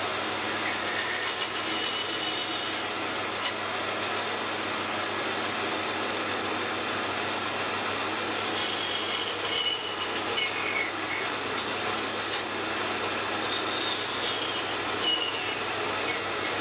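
Vertical band saw running and cutting through thin aluminium plate, a steady mechanical whir with thin high whines that slide down in pitch several times as the blade bites.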